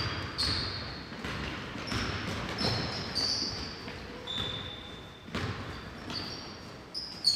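Basketball game sounds in a gymnasium: a ball bouncing on the hardwood floor as it is dribbled, with repeated short high squeaks of sneakers on the court.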